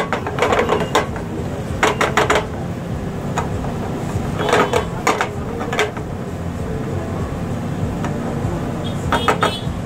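Silicone spatula scraping and knocking against a small frying pan as fried rice is stirred and turned, in short bursts of clatter every couple of seconds, over a steady background hum.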